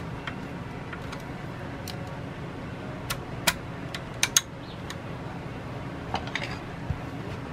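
Sharp metal clicks and clinks of a valve spring compressor being worked on the valve springs of a Kohler K181 single-cylinder engine while its valves are pulled, a cluster of them around the middle and a few more near the end, over a steady low hum.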